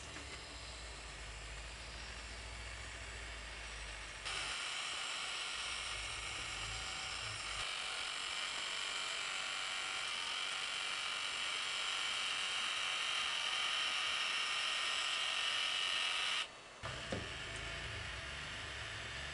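Small electric motor inside a powered Venetian blind tilt rod whirring steadily as it turns the hook shaft to tilt the slats. It starts abruptly about four seconds in, runs for about twelve seconds, then stops suddenly, followed shortly by a brief click.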